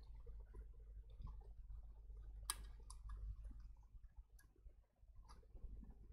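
Quiet handling of a power supply and its wiring: a few faint clicks, the sharpest about two and a half seconds in.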